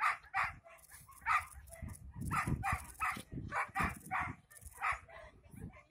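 Dog barking over and over in short, high-pitched barks, about two to three a second, the excited barking of a dog at work in treiball.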